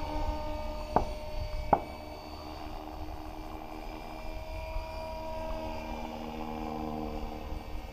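Gaui X5 electric RC helicopter in flight: a steady whine from its motor and rotor head that shifts slightly in pitch, with two sharp clicks, one about a second in and another under a second later.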